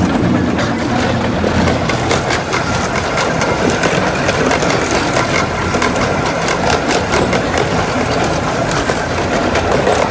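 Small ride-on railroad train running along its track: a steady engine hum with faint repeated clicking from the wheels and track.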